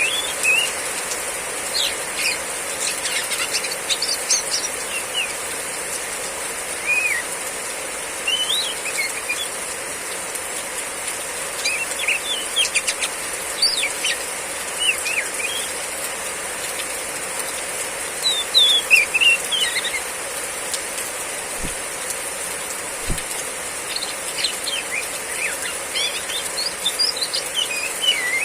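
Female Oriental magpie-robin (kacer) giving its short, sharp riwik chirps in quick bursts every few seconds, the busiest burst about two-thirds of the way in, over the steady hiss of heavy rain.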